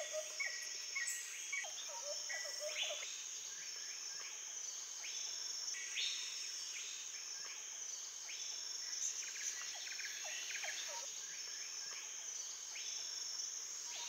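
Rainforest ambience: a steady high-pitched insect buzz with short bird calls repeating every second or so, and a few lower whistled calls in the first few seconds.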